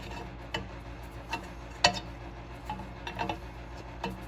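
Threaded steel control-arm bushing clicking against the eye of a 1961–66 Thunderbird upper control arm as it is lined up and turned by hand. About six light metallic clicks come at uneven spacing, the loudest near the middle, over a steady low hum.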